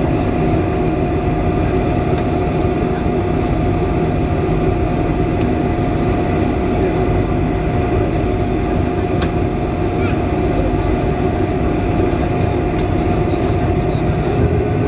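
Steady cabin noise inside a Boeing 747-400 taxiing after landing: a low rumble and hiss from the engines at low thrust with a thin steady tone above it. A couple of light clicks are heard in the second half.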